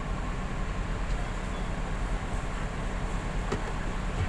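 Steady low drone inside a parked air-conditioned coach's cabin, from its idling engine and air conditioning, with one faint knock about three and a half seconds in.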